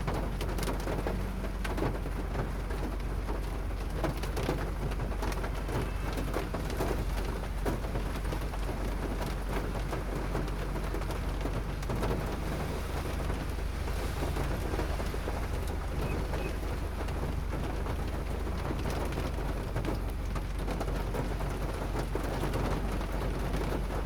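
Hail and rain falling hard: a steady, dense patter of many small impacts.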